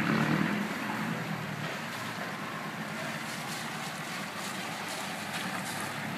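Steady running noise of a moving vehicle, a little louder in the first second or so.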